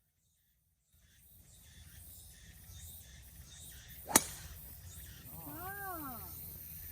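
Golf club striking a ball: one sharp, very short crack about four seconds in, over low outdoor background noise. About a second later comes a short call that rises and falls in pitch.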